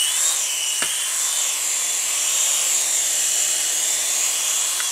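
Syma S107 toy helicopter's small electric motors whining high and steady as its coaxial rotor blades spin, with a single sharp click about a second in.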